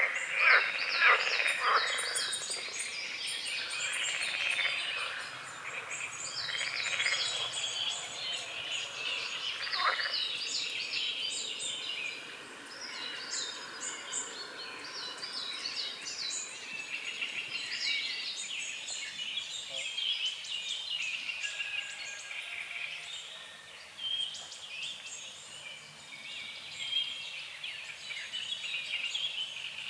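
Several songbirds singing at dawn over a lake, short repeated chirping phrases overlapping throughout, with a few loud frog croaks in the first couple of seconds and another about ten seconds in.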